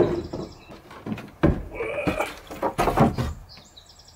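Wooden 2x4 boards knocking and scraping against each other as they are pulled from a stack and carried, several sharp knocks, with a brief creak about two seconds in.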